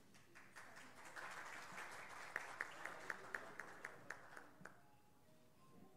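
Light applause from a small audience, fading out about five seconds in. One person's claps stand out sharply in the middle, at about four claps a second.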